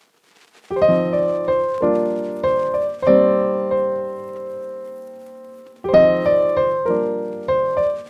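Background piano music: after a moment of quiet, chords are struck in short phrases, and one held chord is left to fade before the next phrase starts about six seconds in.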